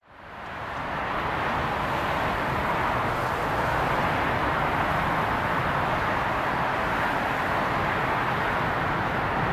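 Airbus A380 on final approach, its four Rolls-Royce Trent 900 turbofans heard from the ground as a steady rush of jet noise with a low rumble beneath. The sound fades in over the first second.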